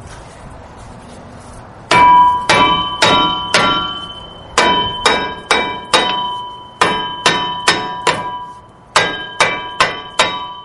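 Steel brake disc rotor on a 2004 Ford Expedition struck repeatedly to knock it loose from a hub that has rusted to it, ringing like a bell after each blow. There are sixteen blows in four runs of four, about two a second.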